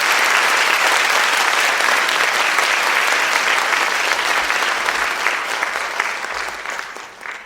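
Applause: a crowd clapping steadily and densely, tapering off near the end.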